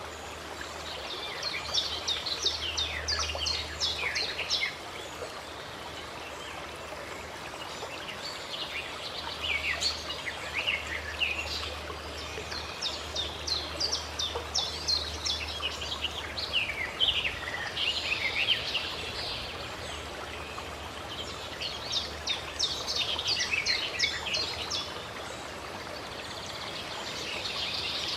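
Songbirds singing in several bursts of rapid, busy chirps over the steady rush of a flowing stream.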